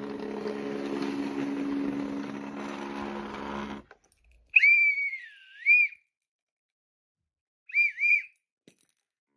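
Hornby model train running on the track with a steady motor hum, cutting off abruptly about four seconds in. Then a high whistle: one note that dips and rises back, and a short double note near the end.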